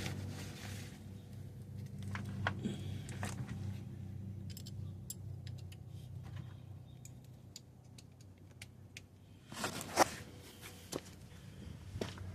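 Light metallic clicks and rattles of tools and parts being handled, over a steady low hum, with a louder clatter about ten seconds in.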